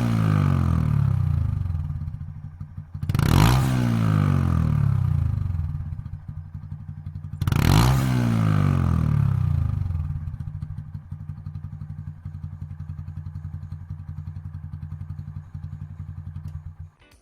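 Honda Monkey's single-cylinder engine through a Yoshimura Straight Cyclone full exhaust system, idling and blipped three times, at the start, after about three seconds and after about seven seconds; each blip rises sharply and falls back to a steady idle. The sound cuts off abruptly just before the end.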